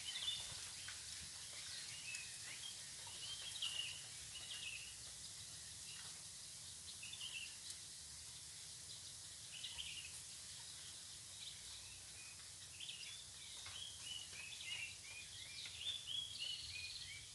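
Small birds chirping in scattered clusters of quick calls, busiest in the middle and near the end, over a faint steady hiss of riverside ambience.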